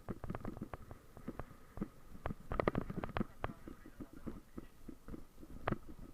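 Mountain bike rattling over rough ground: rapid, irregular clicks and knocks.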